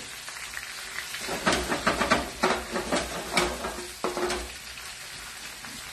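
Cherry tomatoes sizzling in a hot frying pan while a spoon stirs them, with a run of quick scraping strokes against the pan from about one and a half to four and a half seconds in.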